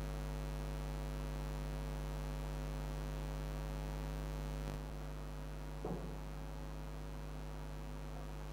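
Steady electrical mains hum with a stack of overtones, dropping slightly in level about five seconds in, with a brief soft noise about a second later.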